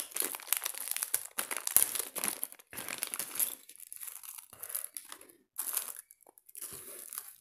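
Thin clear plastic bag crinkling as it is opened and handled. The crackle is dense for the first few seconds, then comes in sparser bursts with short pauses.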